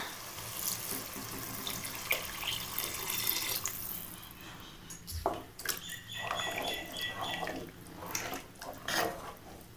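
Water being poured into a pressure cooker full of sautéed mushroom masala, then the watery mixture stirred with a wooden spatula, with splashing and clicks against the pot.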